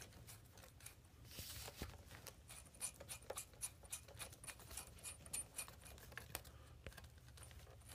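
Faint light metal clicks and scraping of a scooter's steering-stem lock ring being spun off its threads by hand, with a brief scrape about a second and a half in, over a low steady hum.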